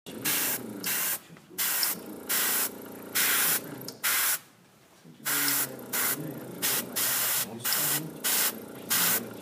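Gravity-feed airbrush spraying paint in about a dozen short bursts of air as its trigger is pressed and released, with a pause of about a second near the middle.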